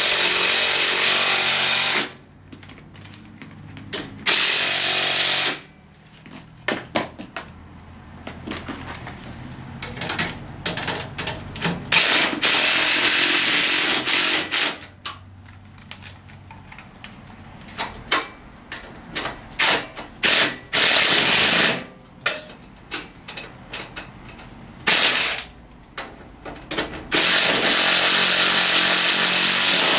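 Cordless impact driver run in several bursts of one to three seconds, hammering the rack bolts tight, with clicks and knocks of handling between the bursts.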